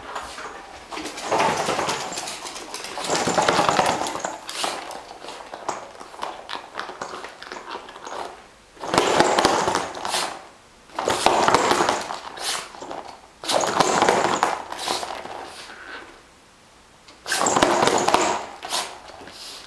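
West Highland white terrier playing with a small toy on a hardwood floor: about seven noisy bursts of scuffling and scrabbling, each roughly a second long, with short pauses between.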